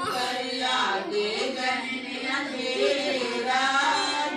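A woman's voice singing a Hindi devotional song (bhajan) in long, wavering notes.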